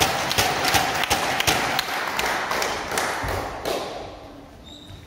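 Table tennis ball tapping and bouncing on the wooden gym floor and table, a quick irregular run of sharp taps and thuds in a reverberant hall that dies away about four seconds in.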